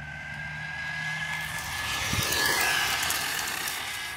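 Remote control car's motor whining at a steady high pitch as it drives in and past, its tyres hissing and crunching on gravel. The sound builds to its loudest a little past halfway, then fades.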